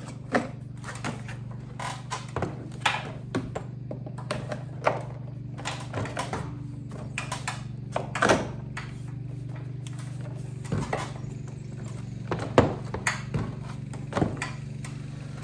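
Irregular knocks and clunks as a retractable air hose reel is handled on its wall bracket, with sharper knocks about eight and twelve seconds in. Under them runs the steady drone of a lawn mower.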